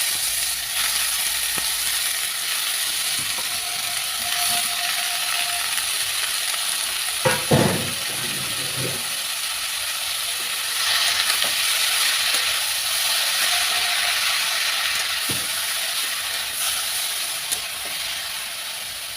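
Grated beetroot sizzling steadily in hot oil in a kadai as it is stirred, with a few knocks of the spatula against the pan, a cluster of them about halfway through.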